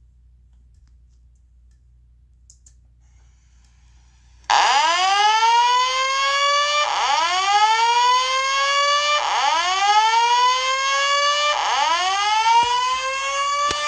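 About four and a half seconds in, a loud fire alarm voice-evacuation alert tone starts from a Wheelock E70 speaker strobe driven by a Simplex 4100U voice-evac panel. It is a rising sweep repeated about every two and a half seconds, four times: the alert that comes before the spoken evacuation message. Before it there is only a faint hum.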